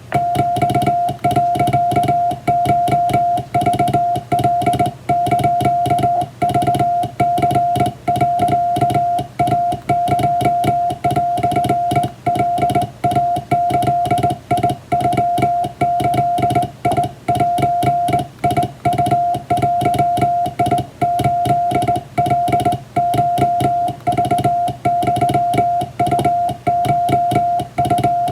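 Morse code sent by hand on a straight (up-and-down) telegraph key, spelling out Japanese wabun telegram text. A single steady tone is keyed rapidly on and off in dots and dashes.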